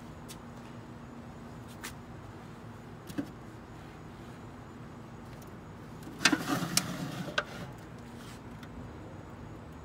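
Clattering and clinking of a smoker's metal rack and foil pan being handled, a short burst about six seconds in, after a couple of light clicks, over a steady low hum.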